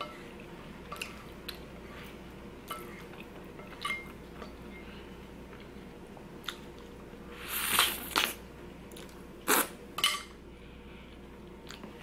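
Close-miked chewing and mouth sounds of a person eating poutine, with small clicks and scrapes of a wooden fork against the plate. The loudest, sharp noises come about eight and ten seconds in.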